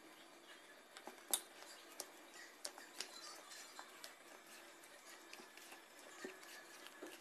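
Faint stirring of thick cake batter in a plastic mixing bowl, with a few light clicks and taps as the metal spoon knocks against the bowl, the sharpest about a second in.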